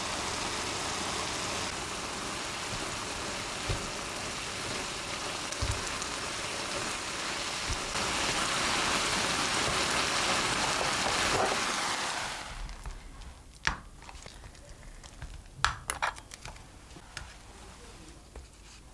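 Chicken, onion and bell peppers sizzling in a frying pan in oil while a spatula stirs them. The sizzling stops abruptly about two-thirds of the way through, followed by a few light clicks and soft rustles.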